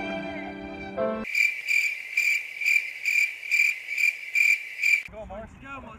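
Violin music ends about a second in. Then a cricket chirping sound effect comes in: a high chirp repeating about twice a second, which cuts off abruptly about five seconds in.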